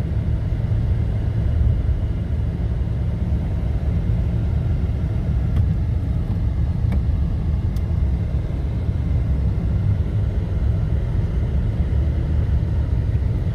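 Toyota Tacoma pickup driving on a snowy road: a steady low rumble of engine and tyre noise, with a few faint ticks in the middle.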